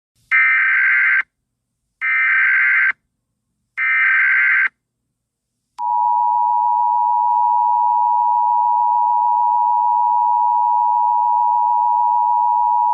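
Emergency Alert System tones. Three short bursts of warbling SAME digital header data come about a second and a half apart. About six seconds in, the steady two-tone EAS attention signal begins and holds.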